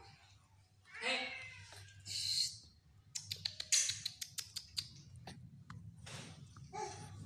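Baby's short, high, meow-like vocal sounds, one about a second in and another near the end, with a quick run of clicks and taps between them from her hands on a plastic toy.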